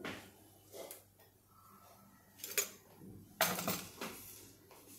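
Metal dishes clattering: a few light knocks, then a louder clatter of small metal bowls and spoons on a metal serving tray about three and a half seconds in, as the tray is set down on a wooden chopping board.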